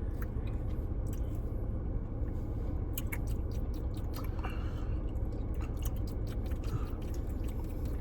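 Close-up chewing of a mouthful of Blizzard ice cream, with scattered small clicks, over a steady low hum.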